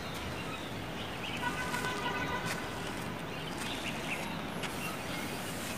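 Quiet outdoor ambience: a steady low background noise with a few faint bird chirps.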